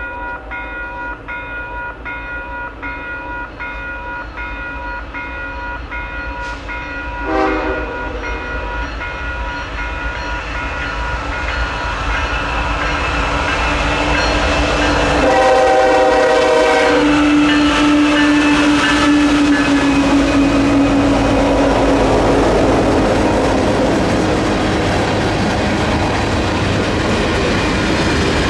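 Electronic railroad-crossing bell ringing in rapid, even strokes while a CP freight led by a GE ES44AC locomotive approaches. The train horn sounds briefly about seven seconds in and again for longer around fifteen seconds in. The locomotives then crawl across with their dynamic brakes on, and the rising rumble of the engines and rolling tank cars builds over the bell near the end.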